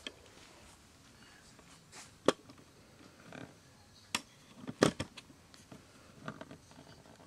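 A few sharp clicks and knocks over quiet room tone, the loudest a quick double knock about five seconds in.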